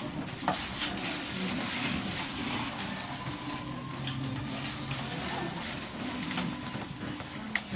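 Indistinct chatter of many people in a crowded shop, with scattered small clicks and knocks.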